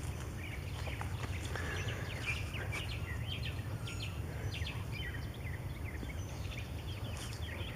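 Backyard birds chirping and calling in short scattered notes, over a steady low rumble of outdoor background noise.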